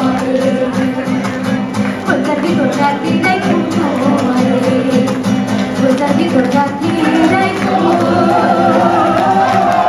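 Live performance of a Bangla modern song: a woman singing through a microphone with acoustic guitar accompaniment.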